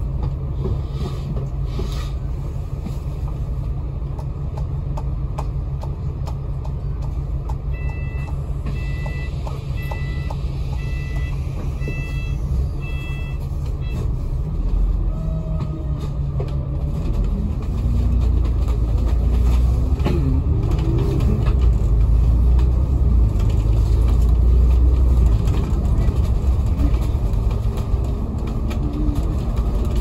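Engine and road noise inside a Hong Kong KMB bus as it runs, with a run of short electronic beeps in the middle. In the second half the engine pulls harder and rises in pitch as the bus accelerates.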